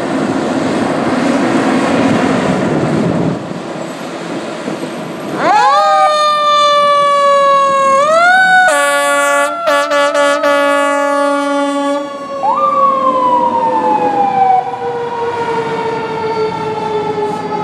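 Fire engine pulling out on an emergency run: a loud rumble at first, then about five seconds in its siren winds up and slowly falls in pitch. Air horn blasts come over it in the middle, ending in several short blasts in quick succession. The siren winds up again about twelve seconds in and drops slowly in pitch to the end.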